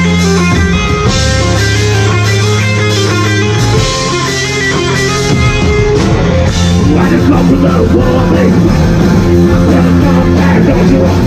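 Loud live rock band playing with electric guitars, bass and drums. Held chords in the first half give way to a busier passage about six seconds in.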